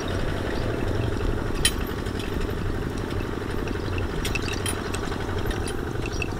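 Single-cylinder diesel engine of a Kubota ZT140 two-wheel walking tractor running steadily with a fast, even chugging, under way with a loaded trailer. A few light rattles can be heard over it.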